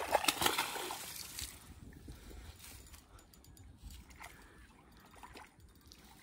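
A short splash of water lasting about a second and a half at the start, then faint water sounds and a few small clicks.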